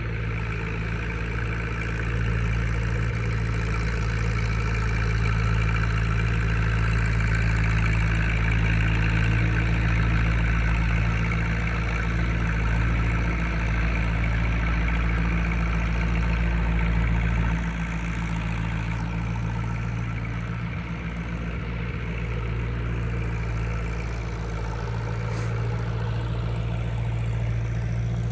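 John Deere tractor engine running at a steady idle, holding one even note throughout, growing a little quieter for a few seconds past the middle.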